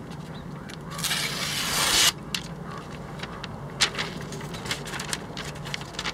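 A kitchen knife slicing down through a held sheet of newspaper along its grain: a hiss of about a second that grows louder and stops abruptly. Afterwards the paper crackles and rustles a few times as it is handled.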